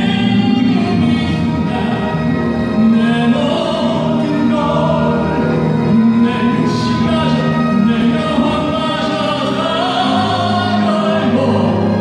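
Male pop-opera singer singing in operatic style into a handheld microphone over instrumental accompaniment, amplified through the hall's speakers. A low bass note joins the accompaniment about ten seconds in.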